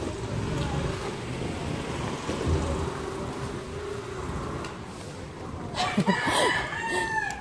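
A rooster crows once near the end, a long call that rises and then falls over about a second and a half.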